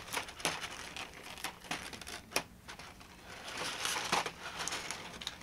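Clear plastic blister tray of action-figure accessories crinkling and clicking as it is handled and pried open, in scattered irregular crackles.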